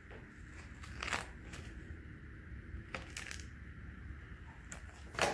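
Child's plastic safety scissors snipping through printer paper, several irregular cuts with light paper rustle, the loudest snip near the end.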